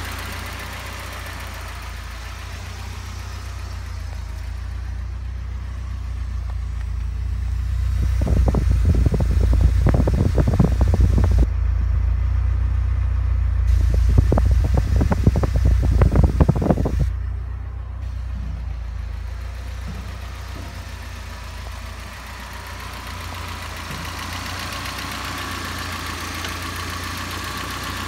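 1986 Alfa Romeo Spider's twin-cam four-cylinder engine idling steadily. Close to the tailpipe the exhaust pulses grow louder for about ten seconds midway, then drop back to the even engine hum.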